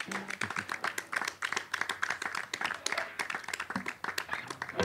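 Small audience applauding: many separate hand claps.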